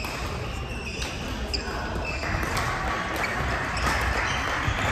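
Badminton rally: sharp clicks of rackets striking the shuttlecock and players' footsteps thudding on the wooden court, echoing in a large sports hall.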